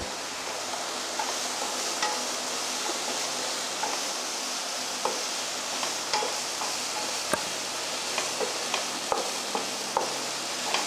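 Diced vegetables (onion, bell peppers, carrot, corn) being lightly sautéed in a nonstick frying pan: a steady sizzle while a wooden spatula stirs them, with light scattered taps of the spatula against the pan.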